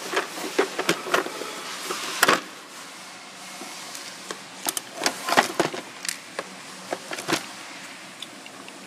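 Hard plastic tool cases being pushed and shifted in a steel tool cart drawer: scattered knocks and clatters, the loudest about two seconds in, with another cluster around five seconds in.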